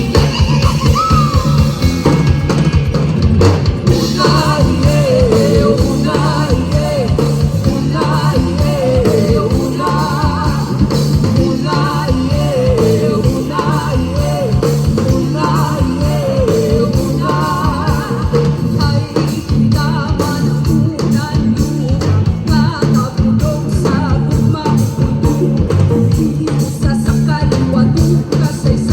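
Upbeat rock-style song with a singer over drums and guitar, a steady beat throughout.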